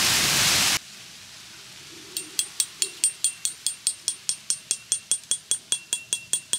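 Strong wind buffeting the microphone, cut off abruptly just under a second in. After a quiet moment, a fast, even run of light ticks with a ringing high tone begins, about four to five a second.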